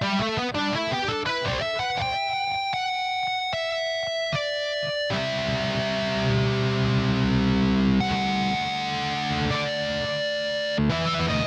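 Roland AX-Synth keytar played through an electric-guitar-like lead sound: fast runs of notes, then two held chords about halfway through, and another fast run after a sharp break near the end.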